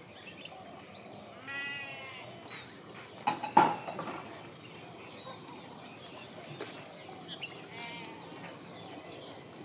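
An animal call with a quavering pitch, about one and a half seconds in, then a shorter one near eight seconds, over a faint steady hiss with a thin high tone. Two sharp knocks a little after three seconds are the loudest sounds.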